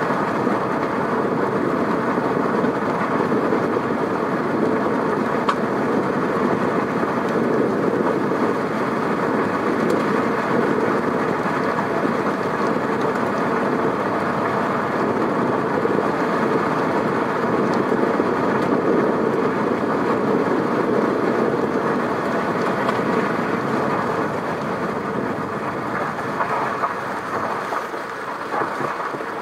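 Steady road noise of a car driving: tyre and engine noise as an even, unbroken rush, easing a little in the last few seconds.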